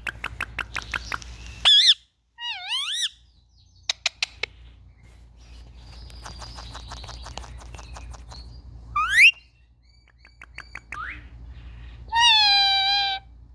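Indian ringneck parakeets calling: a run of quick clicks, short rising and wavering chirps and squawks, and one long, loud held call near the end.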